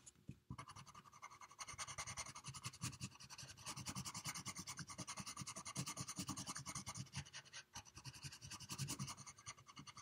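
Coloured pencil scratching on paper in quick back-and-forth strokes, several a second, shading in a small area to cover the white spots. It is faint and grows steadier about a second and a half in.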